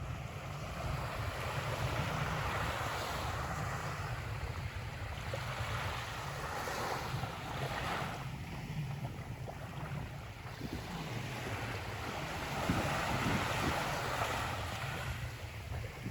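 Small waves washing onto the beach in slow surges, a few seconds apart, with a steady low rumble of wind on the microphone.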